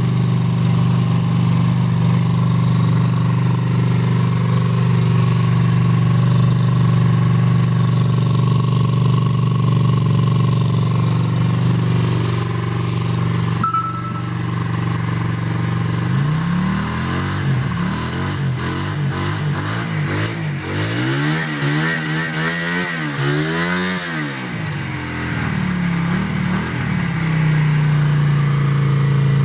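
Suzuki Intruder 125 motorcycle engine idling steadily, then blipped through a series of quick revs from about halfway through before dropping back to idle near the end. Recorded on a phone microphone that loses much of the bass.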